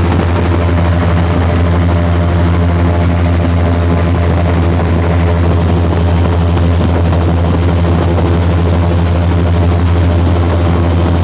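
Airboat's engine and air propeller running steadily at cruising speed, heard from on board: a loud, unchanging deep drone.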